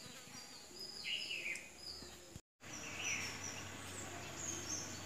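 Small birds chirping in a short, repeated series, with two louder calls about a second in and about three seconds in, over a steady high insect whine. The sound drops out for a moment near the middle.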